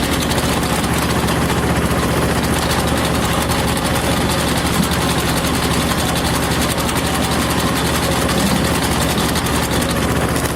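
TZ-4K tractor engine running steadily at speed, driving a screw-cone log splitter through its PTO, with a fast, even engine beat.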